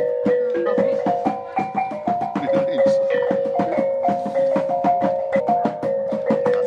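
Background music: a melody of held notes over a quick, steady percussive beat.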